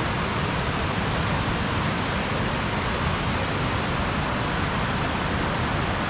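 Steady, unbroken rush of fast-flowing water.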